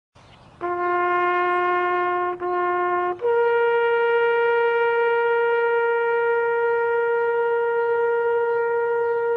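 A horn-like wind instrument blowing a long low note, briefly breaking off once, then jumping to a higher note held steadily for several seconds.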